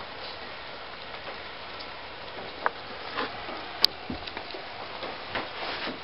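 Steady rain falling, with drops dripping close by in scattered sharp ticks; the loudest drip lands about four seconds in.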